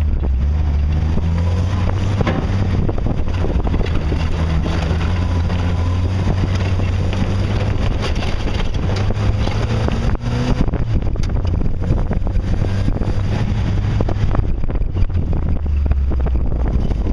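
Jeep engine running at low speed on a rocky trail, with repeated knocks and rattles from underneath, thickest in the second half. The driver suspects a damaged muffler banging around under the Jeep.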